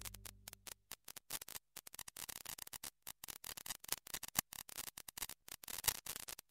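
Background music fading out within the first second, followed by faint, rapid, irregular clicking and ticking.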